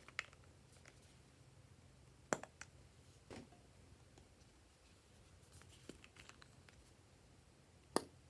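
A handful of short, sharp plastic clicks and taps from cosmetic squeeze tubes being handled over a glass bowl. The two loudest come about two seconds in and near the end, over a faint low hum.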